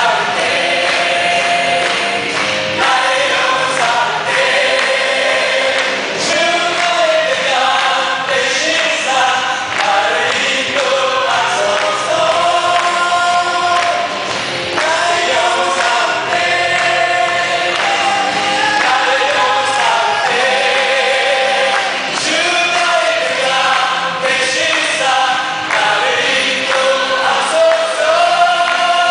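A small choir singing a worship song, led by a man singing into a microphone, with music behind them.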